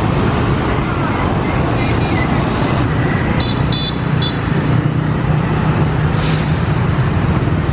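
Dense rush-hour street traffic, mostly motorbikes and scooters with buses and trucks, making a steady engine drone. A few short high beeps come about halfway through.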